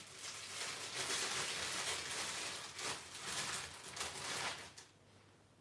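Plastic bread bag crinkling and rustling as slices of bread are taken out, stopping about five seconds in.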